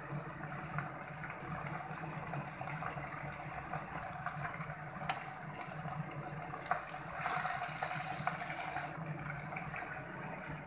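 Red amaranth leaves sizzling and wilting in a metal pan while a wooden spatula stirs them, with occasional clicks of the spatula against the pan over a steady low hum. The sizzle swells about seven seconds in.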